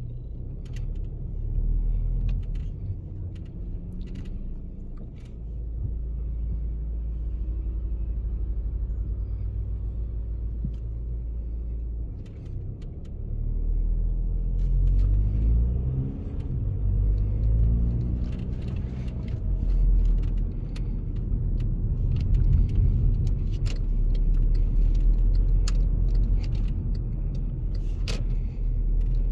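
Volkswagen Passat B7 on the move: steady low engine and road rumble, with the engine note rising as the car accelerates about halfway through, and scattered small clicks and knocks.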